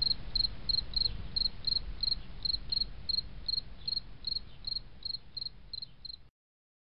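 Cricket chirping steadily, about three short chirps a second, over a low rumble, cutting off suddenly near the end.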